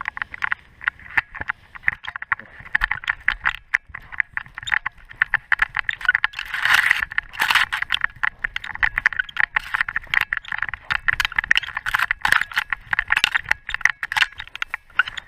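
Harness-mounted action camera rattling and clicking rapidly as the dog moves, with scraping and rubbing against the camera housing, loudest about six to eight seconds in.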